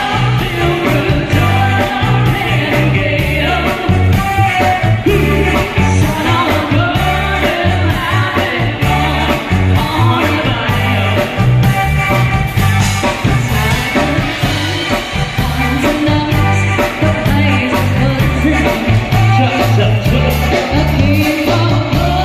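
Live band playing a song through loud PA speakers: a singer's voice over a drum kit, electric guitar and keyboard, with a steady beat.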